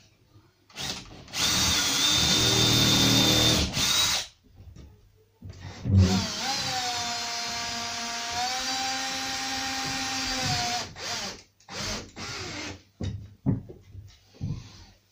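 Cordless drill running in two long runs as it bores through a timber batten into a stud wall: the first, about a second in, lasts about three seconds; the second, from about five seconds in, is a steady whine that shifts in pitch partway and lasts about five seconds. Several short bursts of the drill follow near the end.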